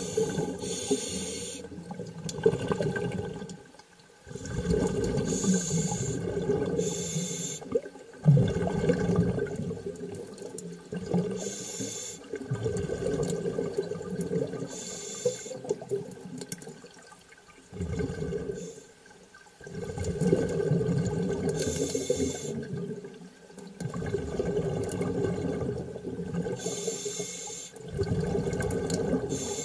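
Underwater rushing and bubbling water, rising and falling in surges every four or five seconds with brief lulls between, some surges carrying a higher hiss.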